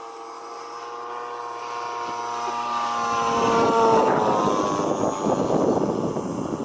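Engine of a large-scale radio-controlled warbird model making a low pass. It grows steadily louder to a peak about four seconds in, then drops in pitch as it goes by, with a rougher rushing noise while it is closest.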